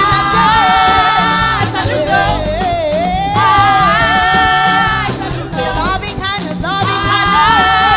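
Gospel singing: a female lead voice holds long notes, sliding upward about two seconds in, over instrumental backing with a steady bass line.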